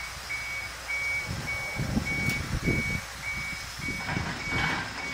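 Komatsu excavator's travel alarm beeping evenly, a little under twice a second, over the low running of the diesel engine, which swells twice as the machine moves on the lowboy trailer.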